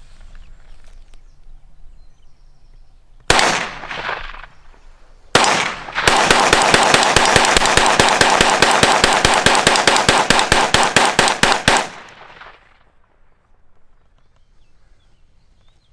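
AR-style semi-automatic rifle in 5.56mm/.223 Rem firing: two single shots about two seconds apart, then a rapid string of evenly spaced shots, several a second, lasting about six seconds and stopping abruptly.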